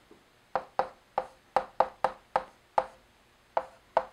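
Chalk tapping on a chalkboard while writing: about ten short, sharp taps at an uneven two to three a second.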